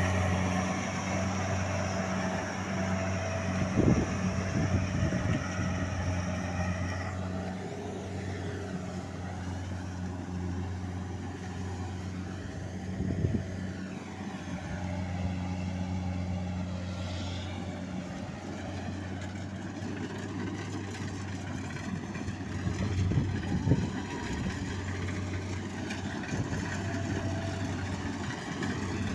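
Rice combine harvester's engine running steadily with a low hum, with a few scattered knocks.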